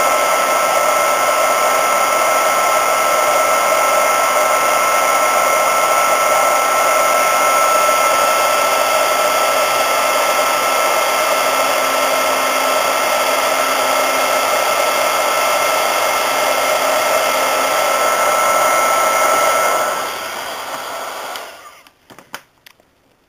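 Electric embossing heat gun blowing hot air steadily with a steady whine, reflowing solder paste on a circuit board; it is switched off about twenty seconds in and runs down to quiet.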